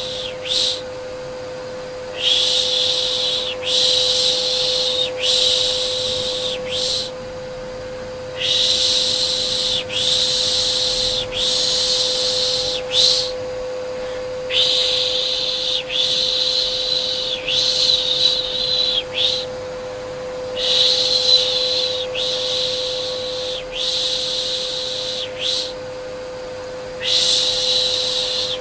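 Steady hum of a vacuum cleaner running, with a person shushing "shh" over it to soothe a baby. The shushes come in groups of about four, each a little over a second long, with short pauses between the groups.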